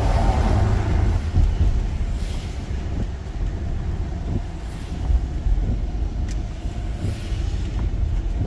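Car driving on a wet road, heard from inside the cabin: a steady low rumble of road and engine noise, with a hiss that swells now and then.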